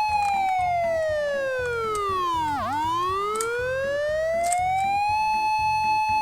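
Emergency-vehicle siren sounding a slow wail. The tone falls steadily for about two and a half seconds to a low point, then rises again and holds high near the end.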